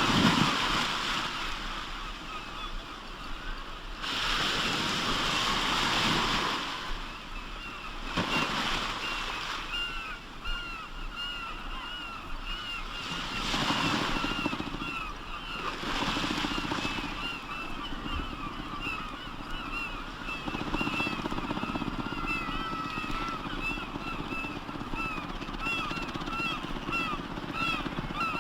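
Waves surging and breaking every few seconds, joined about a third of the way in by a flock of birds giving short, repeated honking calls, several a second, that continue over the surf.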